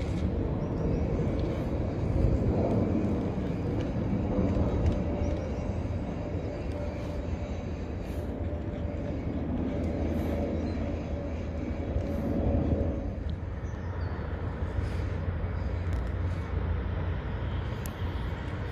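Steady low rumble of outdoor city background noise, with a faint steady hum through roughly the first two-thirds that fades out after about thirteen seconds.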